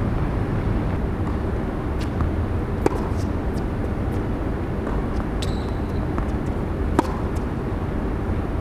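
Steady low rumble of outdoor urban background noise, with a few sharp pops of a tennis ball being struck or bouncing, the loudest about seven seconds in, and a brief high squeak around the middle.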